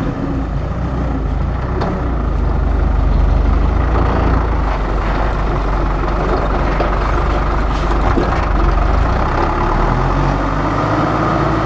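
Dump truck's diesel engine running close by, a loud steady low rumble, with a faint whine that rises a little in the second half.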